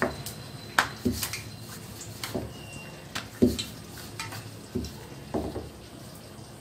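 Rolling pin knocking and tapping on the rolling board at irregular intervals as a puri is rolled out, about ten sharp knocks in all.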